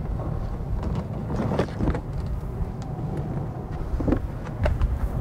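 A few light clicks and knocks as the Beechcraft Baron 58's rear cargo door is unlatched and swung open, over a steady low outdoor rumble.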